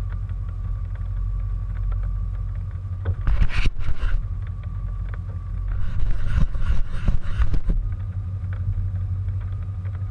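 Hands fumbling on a roof-mounted GoPro camera's housing, trying to switch it on: two spells of rough scraping and rubbing, about three seconds in and again from about six to eight seconds. Under them runs the steady low rumble of the Ford Bronco's idling engine.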